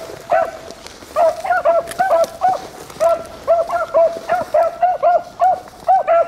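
Beagles baying on a rabbit's track: a fast, steady string of short high barks, about four a second, after a brief pause near the start.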